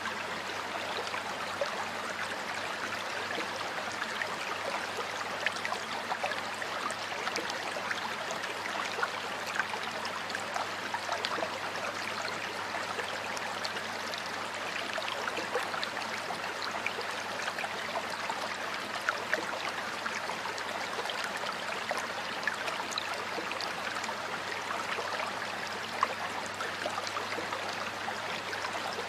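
Stream water flowing and splashing over stones, a steady rushing with many small splashes and gurgles.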